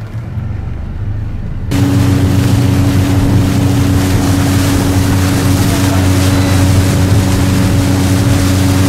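Tour boat's engine running under way, a steady low hum with wind and water rushing. About two seconds in it turns suddenly much louder.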